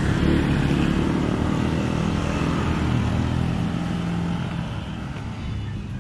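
A motor vehicle engine running steadily, slowly fading over the last couple of seconds.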